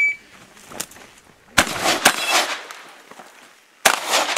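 The shot timer's high electronic start beep ends right at the start, then a shotgun fires during a practical shooting stage: three loud shots, the first about a second and a half in, the second half a second later and the third about two seconds after that, each with a short echoing tail.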